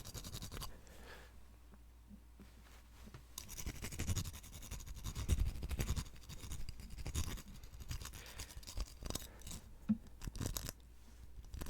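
Fast, irregular fingertip tapping and scratching on a small hard object held close to the microphone, played with short nails. The taps are sparse and soft for the first few seconds, then come quicker and louder.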